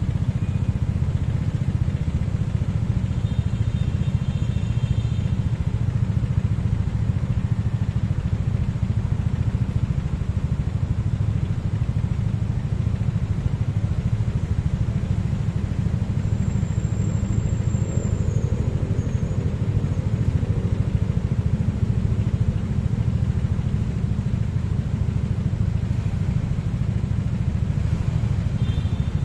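Motorcycle engine idling at a standstill: a steady, even low rumble.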